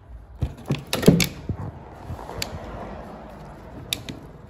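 Hard plastic clicking and knocking as a gloved hand handles a headlight housing and its plastic-welded mounting bracket. A cluster of sharp clicks comes in the first second, then a couple of single clicks over a steady low noise.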